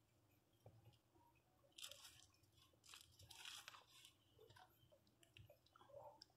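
Near silence, with faint scattered rustles and soft smacking and clicking noises from the puppies and the hand moving on the shaggy mat.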